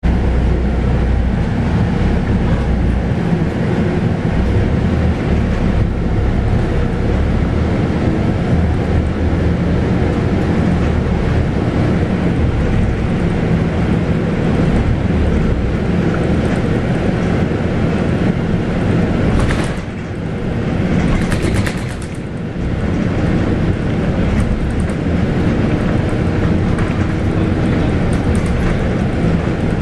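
Scania K280UB bus's 9.3-litre five-cylinder DC9 diesel engine and driveline running under way, heard from inside the bus. The level dips briefly about twenty seconds in, with short bursts of higher noise.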